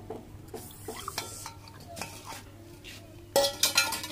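Fresh milk poured from a steel bowl onto semolina in a steel kadhai, with soft splashes and light knocks, then a loud clatter of utensils against the steel pan a little after three seconds in as a wooden spoon starts stirring.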